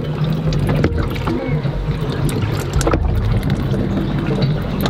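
A steady low rumble inside the boat's hull, with a few sharp clicks and knocks as hands work the fuel filter housing.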